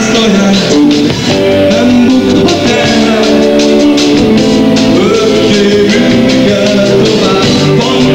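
Indie rock band playing live: electric guitars and drum kit, loud throughout, with a melody of long held notes over them.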